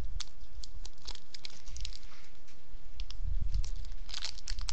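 Close-up chewing of a chocolate, peanut butter and nougat candy bar, with many small sticky mouth clicks and a few low bumps a little past the middle.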